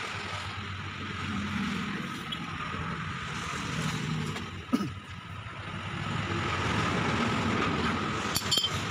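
Steady low mechanical hum of a workshop, with hand tools working on a steering rack's tie-rod end: a ratchet wrench and pipe wrench on the nut give one sharp metal clink about halfway and a few quick clicks near the end.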